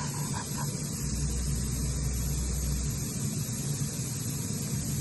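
Steady machinery noise: a low hum with a hiss over it, and a deeper rumble that swells for a couple of seconds about a second in.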